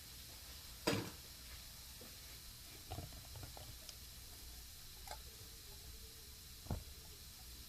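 Kitchen handling noises: a few separate light knocks and clicks, the sharpest about a second in, over a low steady background.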